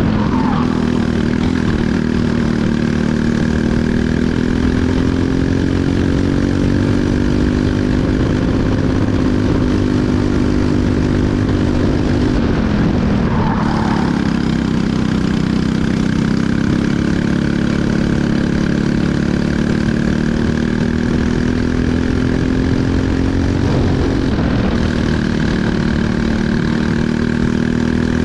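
Briggs & Stratton LO206 four-stroke single-cylinder kart engine at racing speed. Its revs drop briefly three times, about eleven seconds apart, as the driver lifts for corners, and climb steadily again down each straight.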